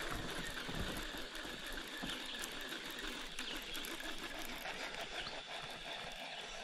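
Bow-mounted electric trolling motor running steadily, with a thin high whine.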